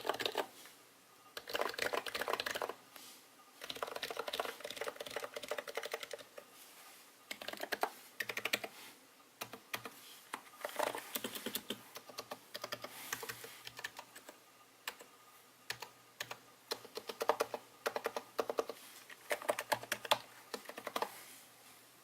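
Typing on a Royal Kludge RC930-87 capacitive keyboard refitted with HHKB rubber domes: quick, muted dome-keyboard keystrokes in bursts of a second or two, with short pauses between runs.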